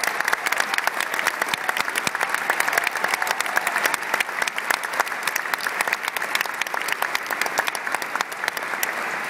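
A large seated audience applauding: many hands clapping densely and steadily, thinning a little near the end.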